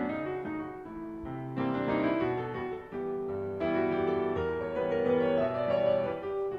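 Piano music: chords and melody notes struck and left to ring, with new chords coming in about every second or two.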